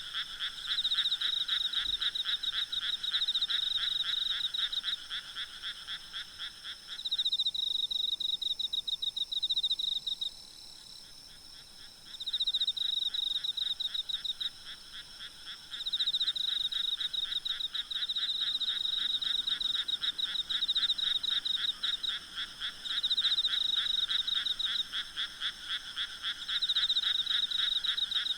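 Night chorus of frogs, several calling at once in rapid trilling croaks that come in bouts. A lower-pitched caller stops about seven seconds in, and the chorus briefly dips a few seconds later before the higher trills resume.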